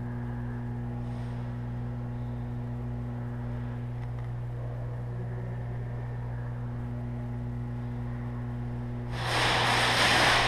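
A steady low electrical-sounding hum runs throughout. About nine seconds in, a loud rushing noise lasts about a second.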